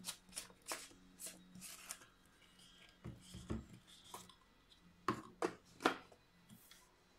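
A plastic Perwoll liquid-detergent bottle being handled and its cap unscrewed: a run of light plastic rustles and clicks, with three sharper clicks in quick succession about five seconds in.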